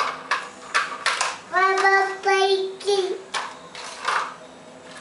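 A small child's voice singing or crooning a short run of held notes about halfway through, after a few short sounds at the start.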